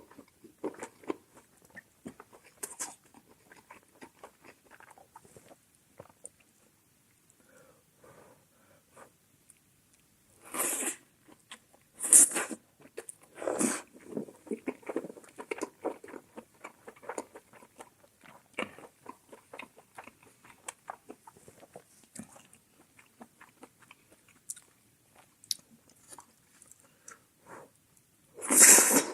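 Close-miked chewing and biting of mala xiang guo wrapped in a steamed flower bun: many small wet, crunchy chewing clicks, with a few short, louder breathy bursts at intervals.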